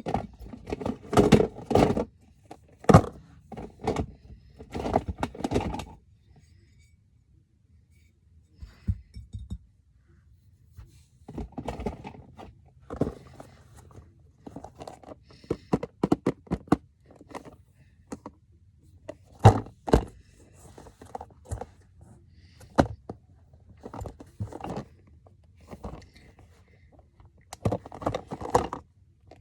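Irregular knocks, clicks and scrapes of hard objects being handled, coming in clusters with a short lull about a third of the way in.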